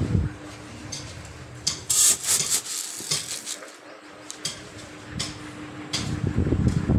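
Plastic shopping bags rustling and dried split chickpeas (chana dal) being handled, with a cluster of crackly, scratchy sounds about two to three seconds in.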